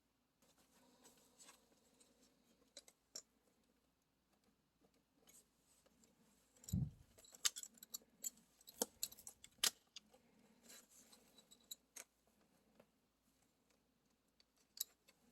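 Scattered small clicks and light metallic taps from handling the screws and parts of a graphics card being taken apart, with a dull thump about seven seconds in.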